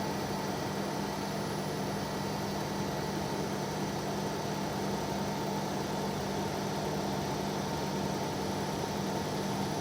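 Engine compartment of an early C27 Nissan Serena e-POWER running with a steady, even hum, after a free parts replacement that was done to remove an abnormal noise. No knock, rattle or click stands out.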